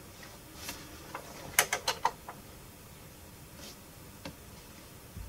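Technics SL-J110R automatic turntable's tonearm mechanism clicking as it runs its auto-play sequence, with a quick run of sharp clicks about a second and a half in and a few lighter ticks later.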